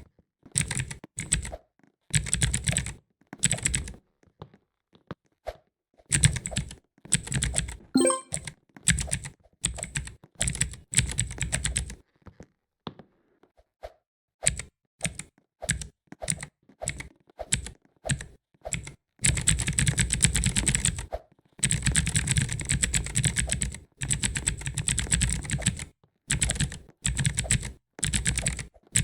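Mechanical keyboard keys typed in quick runs of clicks, broken by short pauses. The longest pauses come a few seconds in and around the middle, and the typing is densest in the second half.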